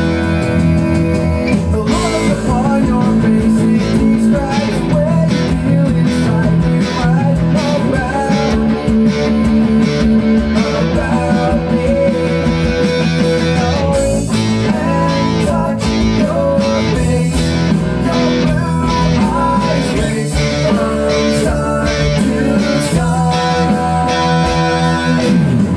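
Rock band music with a steady drum beat and electric guitars, with a lead electric guitar line played along over the band.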